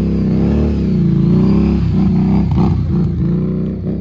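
Harley-Davidson motorcycle's V-twin engine running on the move, its note rising and falling several times as the throttle opens and eases.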